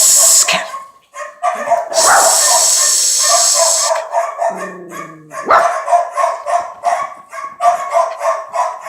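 Recorded dog barking sound effect played through a sound bar: a rapid run of short barks, with a loud hiss for about two seconds near the start.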